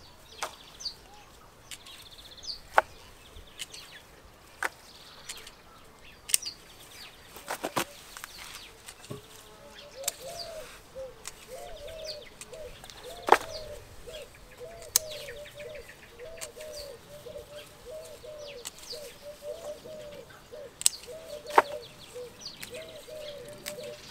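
Sharp clicks of small garden snips cutting herb stems, one every few seconds. From about ten seconds in, a hoopoe calls steadily in the background: a low hooting call repeated over and over.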